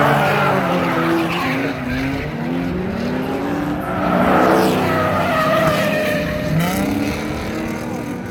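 Drift cars sliding on the track: engines revving up and down with tires squealing. It is loudest near the start and again about four to five seconds in.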